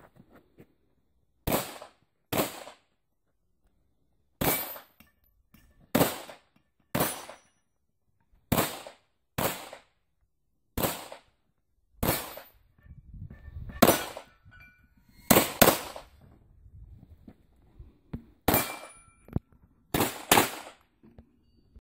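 A pistol firing about fifteen shots at an uneven pace, mostly one to two seconds apart with a few quick pairs. A short ringing tone follows some of the shots.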